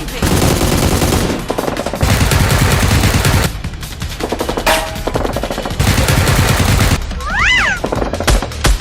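Bursts of rapid automatic gunfire, several seconds long with short breaks between them. A brief rising-and-falling tone sounds about seven and a half seconds in.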